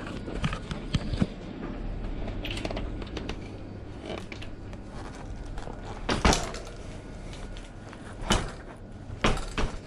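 Mountain bike with a freshly fitted front mudguard being lifted off a repair stand and dropped on its wheels: a run of small clicks and rattles with several sharp knocks, the loudest about six seconds in and two more near the end. It is a drop test for any rattle from the mudguard.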